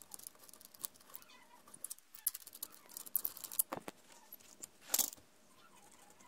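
Small metal clicks and clinks of hands handling the parts of a telescope's equatorial mount, with a couple of louder clicks in the second half.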